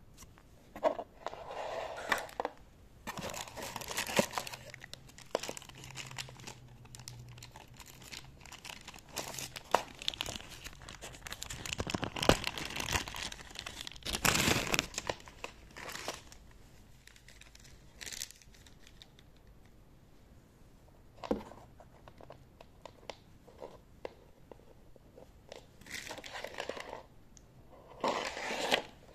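Plastic packaging crinkling and a cardboard box being handled, in irregular rustling bursts with a few sharp knocks, busiest and loudest around the middle.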